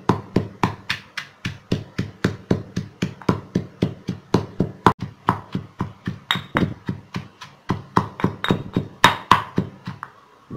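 Granite pestle pounding black peppercorns, dried anchovies, garlic and shallots in a granite mortar, about three even strikes a second, stopping near the end once the spice paste is ground fine.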